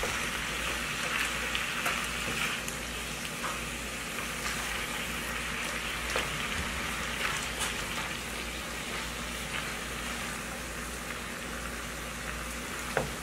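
Chicken fajita strips with sliced bell peppers and onion sizzling steadily in a frying pan while being stirred with a spatula, with occasional light taps of the spatula against the pan.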